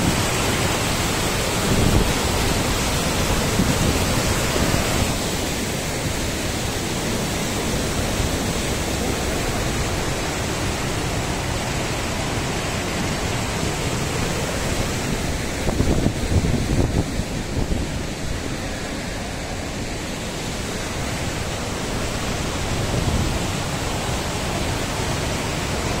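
Steady rush of the Krimml Waterfalls, a high mountain waterfall plunging onto rock, heard from close by. The rush thins a little about five seconds in.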